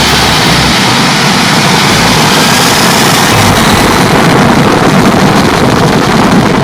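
Twin jet engines of a Boeing 767-300ER at takeoff power, loud and steady, swelling a little towards the middle.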